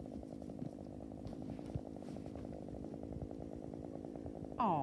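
Small engine idling steadily with a fast, even putter.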